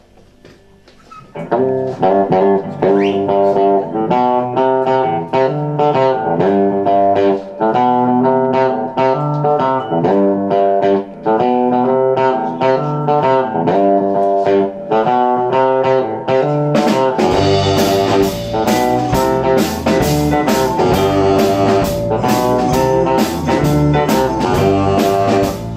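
A semi-hollow electric guitar plays a solo picked riff, starting about a second in. About seventeen seconds in, the double bass and the drums with a steady cymbal beat come in, and the full garage swing band plays together.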